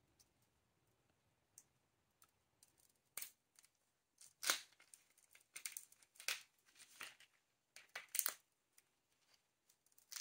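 Shell of a large raw shrimp being split with a plastic deveining tool and peeled off by hand: irregular crackling and tearing in short bursts, loudest about halfway through and again near the end.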